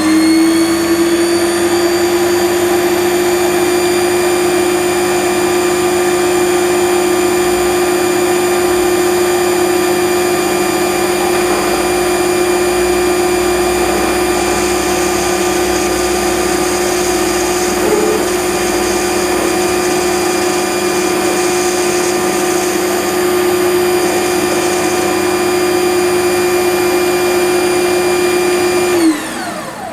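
Small benchtop metal lathe running at steady speed with a high, even motor whine while a very light finishing cut of about a hundredth of a millimetre is taken on a shaft. The pitch settles right at the start, and near the end the lathe is switched off and the whine falls away as the spindle runs down.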